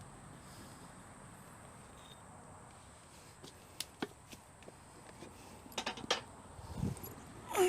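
Propane forge burner running with a steady hiss, with a few sharp clicks and knocks about halfway through and a low thump near the end.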